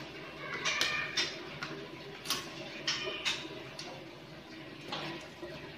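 Scattered light clicks and taps, irregularly spaced, from a steel tape measure and a pen being worked along a PVC ceiling panel while it is measured and marked.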